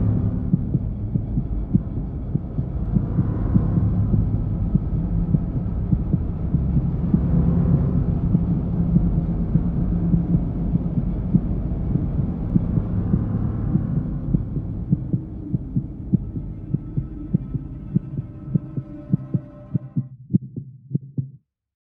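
Low, dark drone with a steady throbbing pulse, about two beats a second near the end. It fades away and cuts off just before the end.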